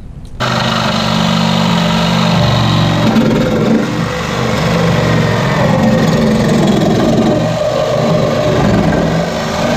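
Skil reciprocating saw (Sawzall) running and cutting through a car's factory rear bumper, starting up about half a second in and then cutting steadily.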